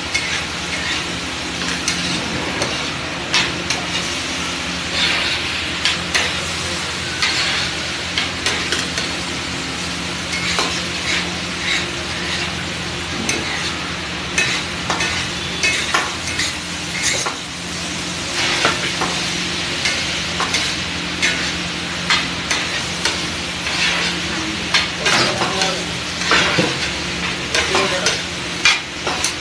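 A steel ladle scraping and knocking on a large flat iron tawa as pav bhaji (boiled potatoes, peas and tomato masala) is stirred and mashed, with many quick strokes over steady sizzling. A low hum runs underneath.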